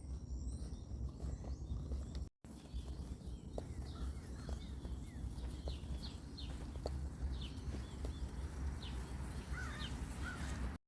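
Outdoor morning ambience: scattered short, high bird chirps over a steady low rumble of wind on the microphone, with faint light ticks of footsteps.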